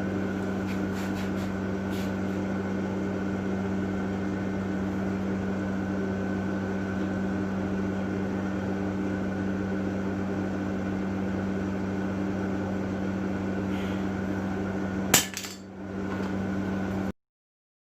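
A steady electrical or mechanical hum, with a few light clicks and one sharp metallic knock about fifteen seconds in. The sound cuts off suddenly near the end.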